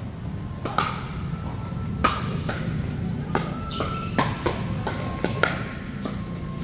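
Pickleball rally: paddles hitting a hard plastic pickleball, about ten sharp pops at uneven intervals of roughly half a second to a second, some leaving a brief ringing ping.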